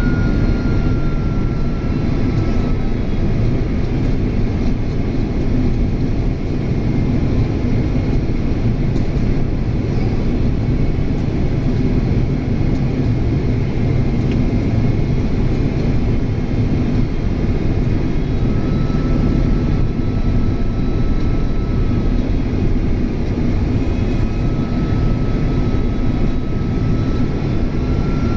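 Boeing 767's General Electric CF6 turbofan engines running steadily in flight: a dense low rumble with a thin high whine that fades a few seconds in and comes back in the second half.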